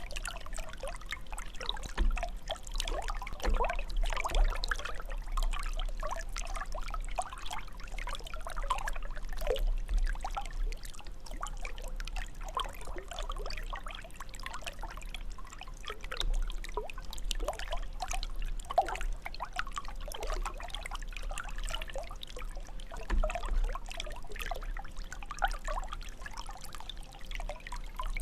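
Jet of water from a fountain splashing and trickling steadily into the water below, a continuous stream of small splashes.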